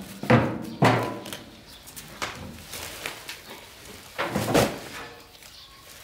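Heavy knocks and thuds: two loud ones close together at the start, a lighter one about two seconds in, and a longer one about four and a half seconds in.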